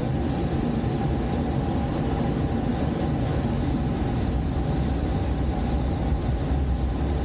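Steady rush of air past a glider in flight, a constant low rumble with an even hiss above it.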